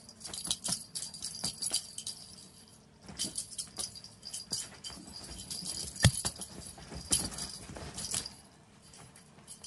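Light jingling and rattling with scattered taps as cats bat and pounce on a ball toy on a bed, with one sharper knock about six seconds in.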